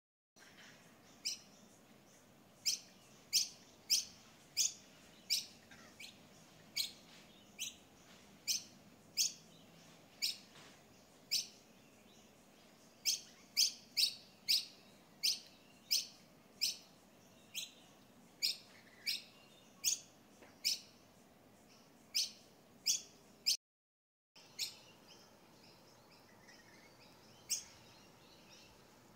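A bird chirping: short, sharp, high chirps repeated about one to two a second, with a few longer pauses.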